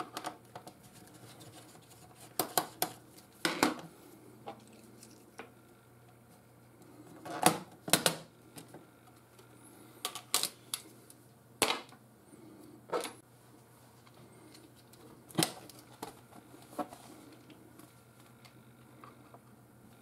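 Scattered clicks and knocks from a small screwdriver and the bottom service cover of an HP 450 G4 laptop as a screw is undone and the cover is lifted off and handled, over a faint low hum.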